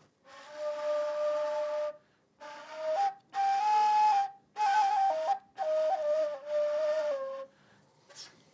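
Ney (Arabic reed flute) playing a slow, breathy melody of held notes that step up and down, in phrases broken by short pauses. The last phrase ends on a falling note.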